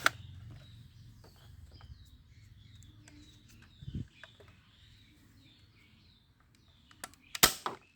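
Birds chirping faintly with a few small clicks, then near the end a single sharp, loud snap from a Nerf-style toy blaster firing.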